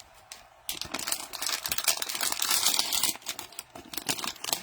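Cellophane wrapper of a trading-card pack crinkling and tearing as it is ripped open: a dense crackle lasting about two seconds, then a few scattered clicks and rustles.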